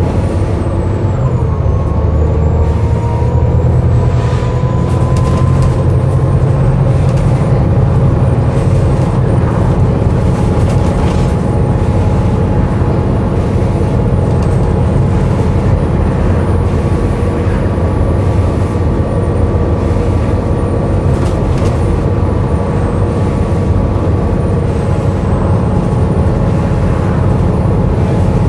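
Volvo B7TL double-decker bus engine running steadily, heard from on board, with a drawn-out groaning tone held over it.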